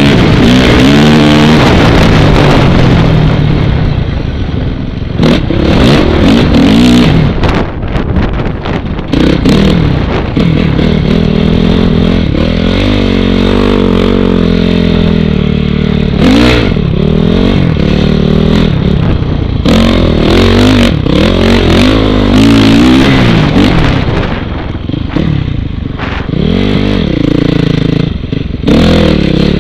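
2006 Honda CRF450R's four-stroke single-cylinder engine with an FMF full exhaust system, revving up and down over and over as the dirt bike is ridden through sand. Wind buffets the microphone over it.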